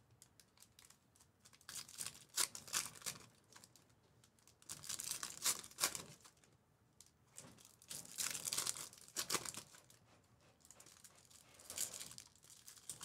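Foil wrappers of trading-card packs crinkling and tearing as hands rip them open and handle the cards, in crisp bursts of a second or two with short pauses between.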